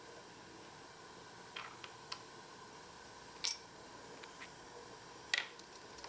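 Sparse light clicks and taps of miniature kitchenware being handled: a wooden spoon at a small ceramic pot, and a tiny ceramic sugar jar being opened. Two sharper taps come in the second half, over a faint steady hiss.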